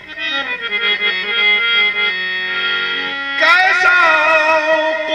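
Harmoniums playing a qawwali melody in steady stepping notes; about three and a half seconds in, a male qawwali singer comes in with a wavering held note over them, along with a few short sharp hits.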